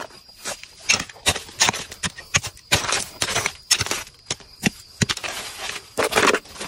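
Hands scraping and scooping crumbly soil and small rocks, giving irregular scrapes, knocks and crumbling rattles as lumps are dug out and dropped into a plastic basin.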